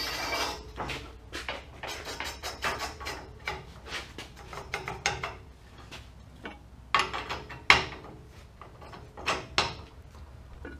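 Steel pipe rod clanking and scraping against the steel lift linkage of an Oliver 575 plow as a homemade lift draw rod is worked into place, with a few sharp metal knocks, the loudest about seven and a half seconds in.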